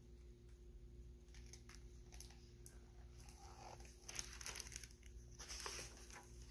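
Faint paper rustling and crinkling from a picture book being handled and its pages turned, with a slightly louder rustle about four seconds in.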